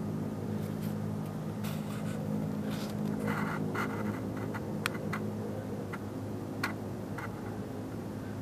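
Steady low droning hum made of several low tones held together, from a source that cannot be placed: the strange hum from the sky. A few light clicks and scrapes sound over it in the middle.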